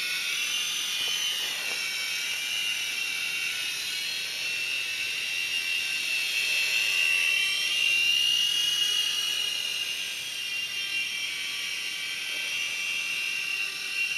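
Small electric radio-controlled toy helicopter (Kyosho EGG) running, its motor and rotors giving a steady high whine. The pitch wavers with the throttle, climbs and is loudest about eight seconds in, then eases slightly.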